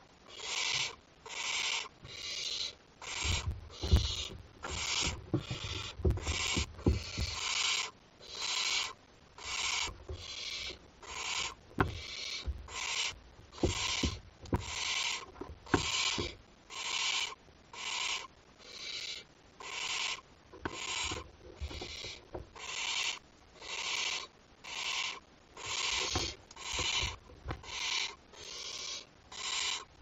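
Barn owl chick giving its rasping, snore-like food-begging hiss over and over, about once a second. Low scuffs and knocks of the owlet shifting on the nest litter come in a few places.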